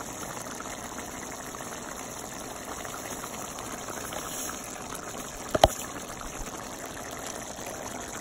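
A pot of tomato-based pork stew simmering with a steady bubbling hiss. One sharp click comes about five and a half seconds in.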